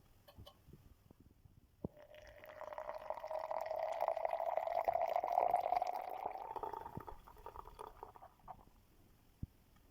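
A light knock, then coffee being poured into a cup for about six seconds, the pitch of the pour rising slightly as the cup fills.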